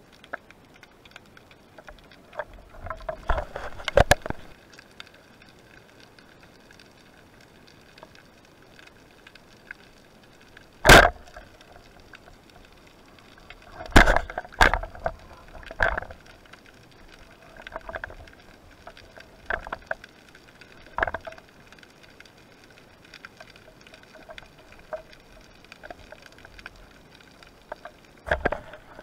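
Sharp knocks and clicks underwater from a spearfisher's speargun and gear being handled, scattered irregularly, the loudest about a third of the way in and a quick cluster of three around the middle. Faint steady tones run behind them.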